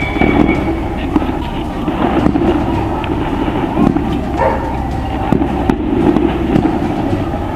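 Crackling rustle and rubbing of clothing close to the microphone, with many small knocks, as the rider wearing the camera is frisked by hand.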